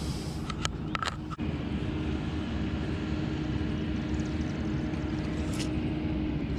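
Steady low engine drone with a constant hum, with a few sharp clicks about a second in.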